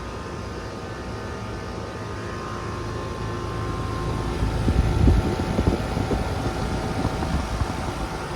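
American Standard Silver Series central air-conditioner condenser unit running, a steady hum with a few steady tones from its compressor and fan. A rougher low rumble swells over it about halfway through and then eases off.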